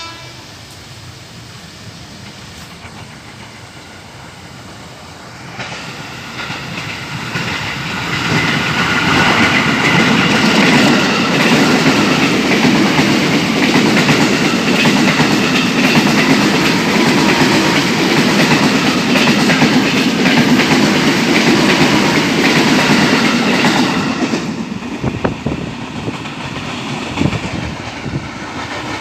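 Electric commuter train passing close by, its wheels clattering over the rail joints. It builds up over the first several seconds, stays loud with a faint steady whine through the middle, then fades away near the end.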